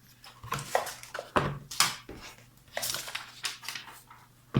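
Handling of a motherboard's boxed accessories: crinkling plastic packaging and small clattering knocks in a string of short, irregular bursts, over a faint low steady hum.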